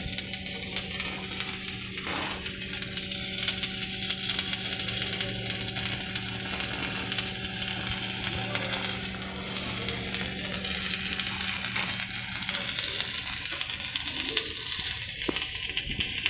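Stick-welding arc crackling and sizzling steadily as the electrode burns. Under it runs a steady low hum that stops about twelve seconds in.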